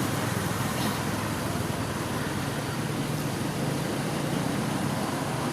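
Steady background rumble and hiss with no distinct events, like traffic noise.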